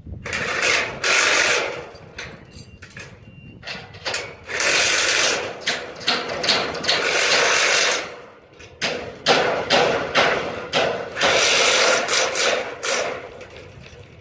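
Power tool run in repeated bursts of up to about two seconds each, with short sharp metallic knocks between the bursts.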